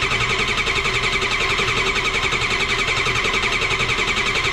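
Starter cranking a Ford 7.3 IDI V8 diesel over steadily with a rapid, even pulse, without firing, while its injector lines are cracked loose to check for fuel at the injectors.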